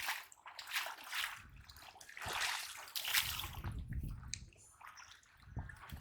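Water splashing and sloshing in a run of irregular splashes, with a few dull low thuds.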